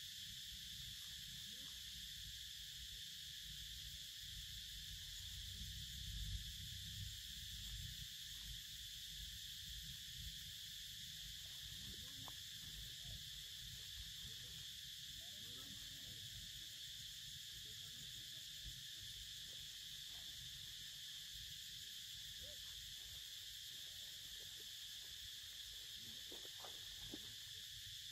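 Steady high-pitched drone of insects, with a low rumble underneath.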